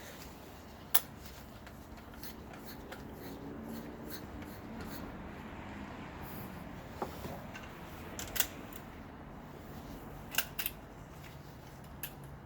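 Scattered sharp clicks and light handling noises, as of tools or parts being picked up and set down, over a faint low hum.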